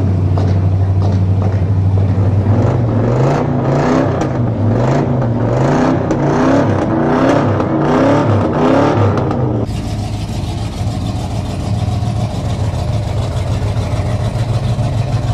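Custom hot rod's big engine idling, then revved repeatedly, its pitch rising and falling. About ten seconds in, the sound changes abruptly to a steady, lower engine note.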